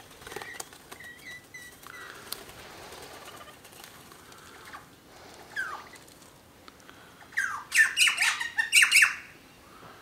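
Wild birds at a feeder: a brief flutter of wings as one takes off at the start, a few short chirps, a short falling call midway, then a burst of loud, harsh squawks about seven to nine seconds in.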